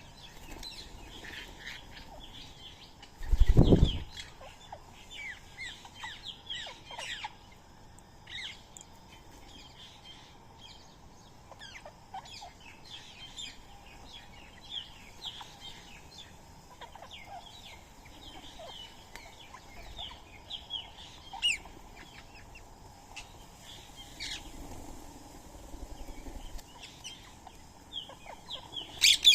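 Birds at a feeding spot chirping and calling in short high notes throughout, with a loud low rush of wings flapping close by about three seconds in. A loud harsh squawk starts right at the end.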